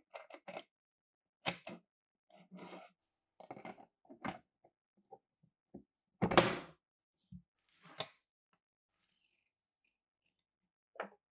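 Metal parts of a Thompson submachine gun receiver being handled during disassembly: light clicks and short scrapes, with one heavier knock and a brief clatter a little past the middle, and a single click near the end.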